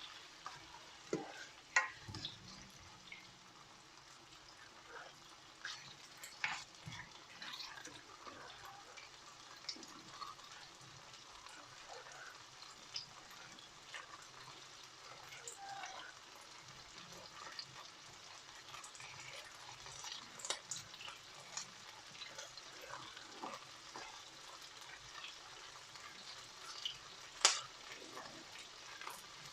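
Peppers frying in oil in a pan, a steady faint sizzle with scattered clicks and scrapes of a utensil stirring.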